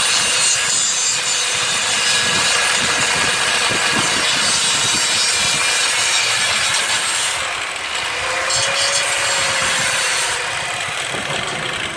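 Angle grinder working steel, a loud steady rasping hiss over the motor's whine; it lets up briefly about two thirds of the way in, resumes, then the motor winds down with a falling whine near the end.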